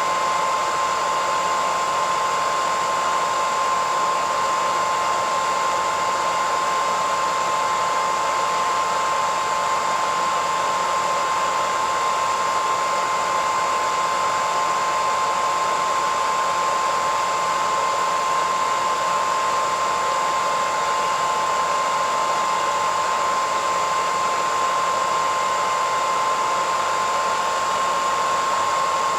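Hairdryer running steadily, a constant rushing airflow with a steady whine near 1 kHz from its fan motor.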